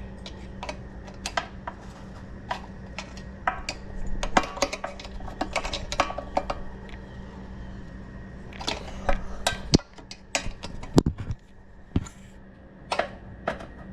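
Irregular metallic clinks and clicks of a hand tool on a bolt or nut as a fastener on a mini bike is tightened, over a steady low hum.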